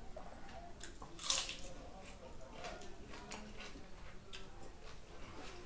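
Wet eating sounds of curd rice: the rice is squished and mixed by hand on a steel plate and chewed with a full mouth. There are several short, sharp smacking sounds, the loudest about a second in.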